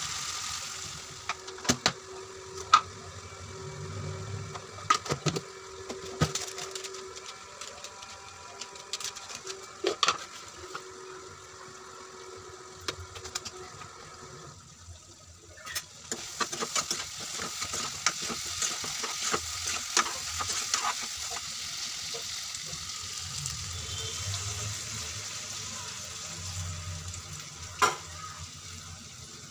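Chicken pieces sizzling in oil and masala in a nonstick kadai, with a metal spatula clicking and scraping against the pan as they are stirred. After a short break about halfway through, the sizzling is louder.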